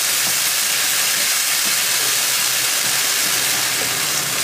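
Stir-fried vegetables and stock sizzling steadily in a hot wok over a high flame, with the liquid hissing as it boils and a spatula stirring.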